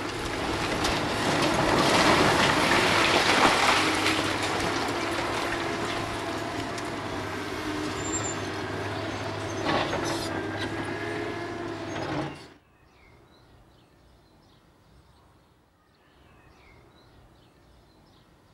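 Hydraulic excavator's diesel engine running as its bucket pulls down a concrete wall, with the crashing and rumbling of falling rubble, loudest a few seconds in. It cuts off suddenly about twelve seconds in to quiet outdoor ambience with faint bird chirps.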